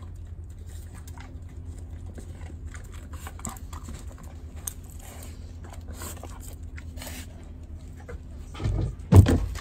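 Dogs moving about close to the microphone over a steady low rumble, with two loud knocks near the end.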